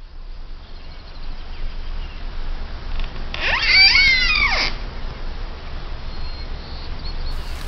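A single loud animal call, rising and then falling in pitch, lasting about a second and a half midway through, over a steady low rumble.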